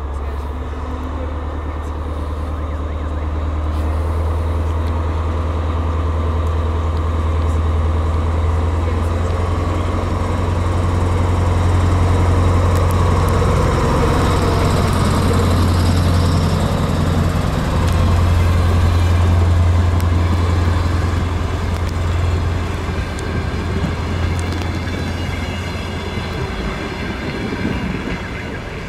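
DR1AM diesel multiple unit's engine running with a deep steady drone, together with train and rail noise. The sound swells toward the middle and eases off near the end.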